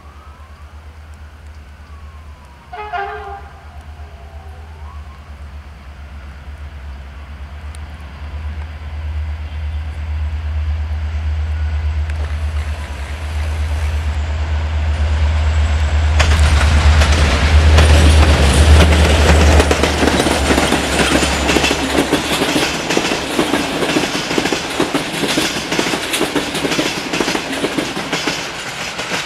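Romanian Class 63 'Jimmy' diesel-electric locomotive, powered by an EMD two-stroke diesel, drawing closer with a low steady engine drone. It gives a short horn blast about three seconds in. The engine peaks as it passes about two-thirds of the way through, then gives way to the clickety-clack of the passenger coaches rolling over the rail joints and points.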